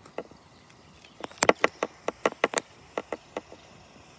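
A quick, irregular run of sharp clicks and taps, several a second, starting about a second in and stopping shortly before the end.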